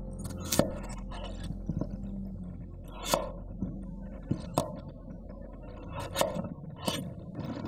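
Kitchen knife cutting through peeled baby potatoes on a wooden cutting board, the blade knocking on the board at each cut: about eight sharp knocks at uneven intervals.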